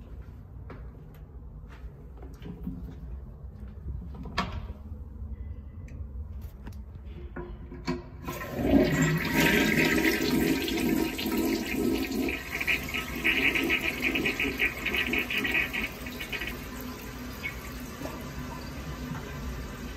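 A few light knocks and clicks, then about eight seconds in a Kohler Highline tank toilet flushes: water rushes into the bowl and swirls down the drain for about eight seconds, then eases into a quieter steady rush as the toilet refills. The uploader finds this Highline's flush weak.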